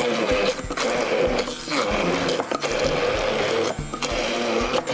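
Hand-held immersion blender motor running steadily as it purées cooked beetroot and vegetables in a tall beaker, cutting out briefly a few times, over background music.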